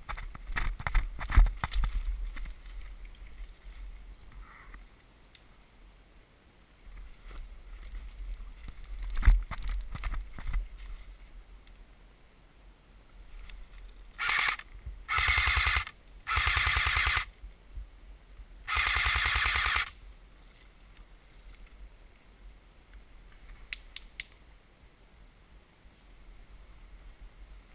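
Electric airsoft AK-47 replica (a CYMA AEG) firing four short full-auto bursts about halfway through, each a rapid buzzing rattle, the last the longest. Earlier, feet shuffle through dry leaf litter.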